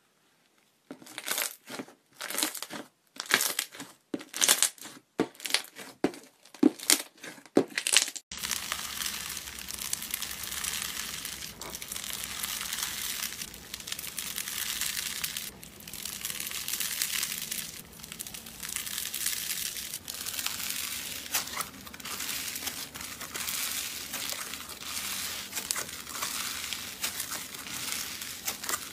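Slime being handled for its sound. First comes a run of short, sharp crackles, about two a second, from thick white slime being folded and pressed. About eight seconds in it cuts to a steady, dense crunchy crinkling that swells and eases as fingers squeeze and stretch apart a fluffy, snow-textured white slime.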